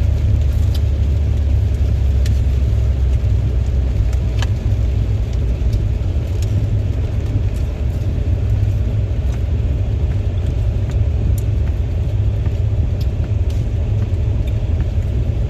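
Steady low rumble of a moving car heard from inside the cabin: road and engine noise, with a few faint clicks.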